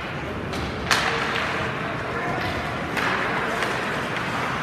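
Ice hockey play: sharp clacks of sticks and puck, the loudest about a second in, over a steady rink noise of skates on the ice and distant voices.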